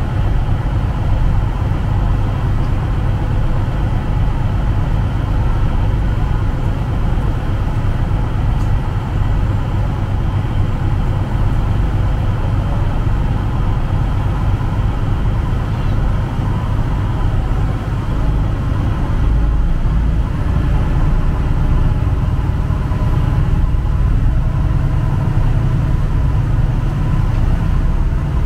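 Ferry engine running steadily, a constant low drone with an even rushing noise over it.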